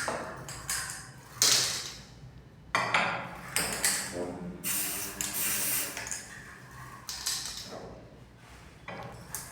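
Aerosol can spraying magnetic particle ink in several short hisses, applied while a yoke magnetises the part in a magnetic particle test.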